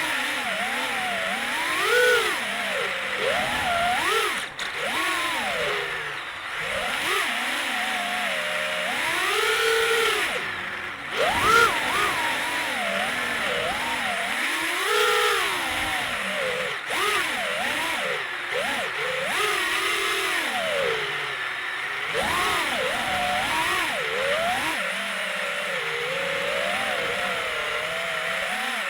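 FPV quadcopter's motors and propellers whining in flight, the pitch swooping up and down with the throttle over a steady rushing hiss.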